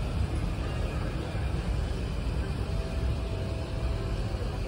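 Steady low rumble of an Airbus A380 cabin: air-conditioning and aircraft noise, even throughout, with a faint thin tone briefly in the middle.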